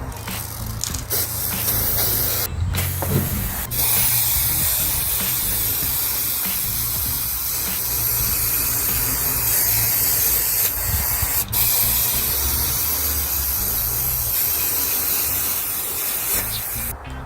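Aerosol spray-paint can spraying a bike frame: a hiss in a few short bursts, then one long continuous spray with a brief break, stopping just before the end.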